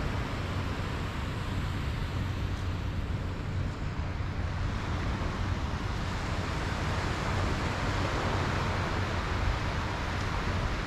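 Surf washing onto a sandy beach in a steady rush, swelling a little about eight seconds in, with a low rumble of wind on the microphone.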